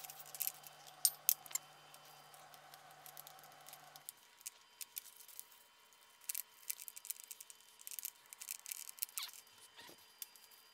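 Faint, scattered clicks and light scrapes of metal on metal as a baked pizza is worked loose from a 700 ml metal mug and pan.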